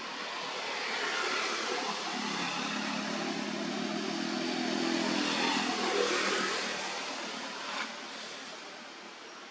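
A motor vehicle passing by: its engine note and road noise swell over several seconds, are loudest about six seconds in, then fade away.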